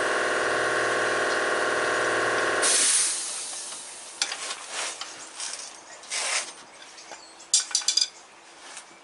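Air compressor running steadily, then shutting off near three seconds in with a short hiss of air that fades, as it reaches cut-out pressure and unloads. A few light metallic clicks and knocks follow.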